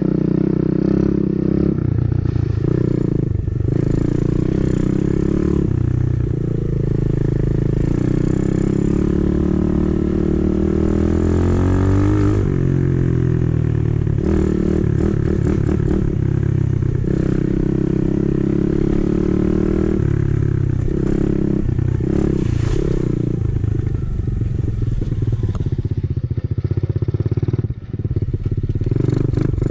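A 125cc dirt bike's engine running as it is ridden, the revs rising and falling with the throttle, with a sweep up in revs about twelve seconds in.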